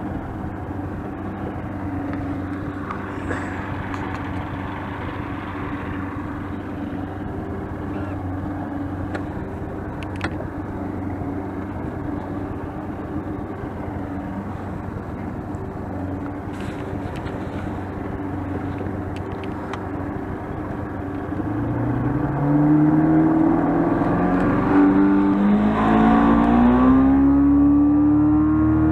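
Boat motor running steadily under way, then throttled up about three-quarters of the way through, its pitch rising and the sound getting louder.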